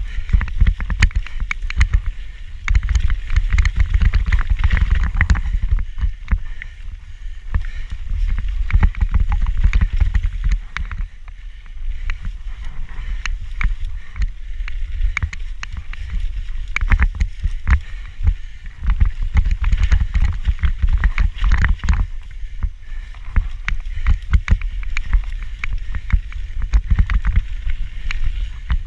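Action camera rattling loudly in its mount while a mountain bike rides fast down a rough trail: a constant clatter of rapid, irregular clicks and knocks over a heavy low rumble from the bumps.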